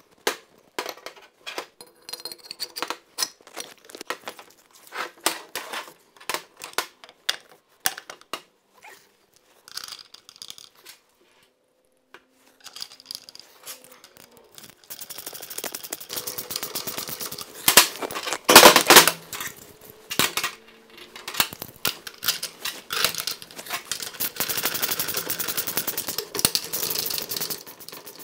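Jet-pump parts being handled and fitted together, giving scattered clinks and knocks, then a ratchet wrench clicking rapidly as the pump's bolts are run in. A couple of louder knocks come partway through.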